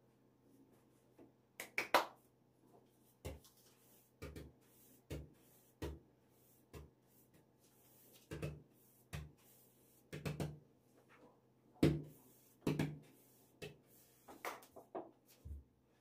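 Dull knocks and thumps on a wooden work surface, about a dozen at an uneven pace of roughly one a second. A sharper cluster of clicks comes near two seconds in, which is the loudest moment.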